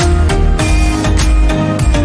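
Background music with a steady beat over a deep bass line.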